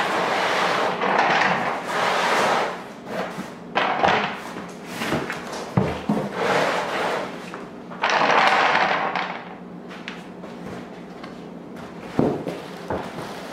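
A large cardboard box being handled: several long scraping, rustling passes of cardboard, with a few short knocks.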